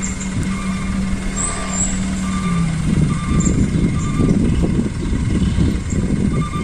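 Dump truck engine running with a steady hum that drops in pitch about three seconds in and turns into a louder, rough rumble, with short repeated beeps over it.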